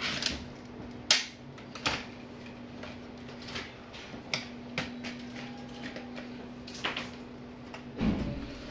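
Plastic clips of a Dell Inspiron 15 laptop's bottom case clicking and snapping as the case is pried apart, a sharp click every second or so, with a duller knock near the end. A steady low hum runs underneath.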